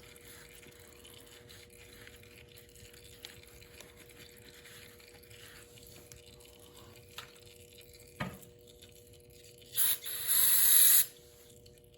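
Aerosol brake cleaner sprayed in two hissing bursts near the end, a short one and then a longer one of about a second, preceded by a single click.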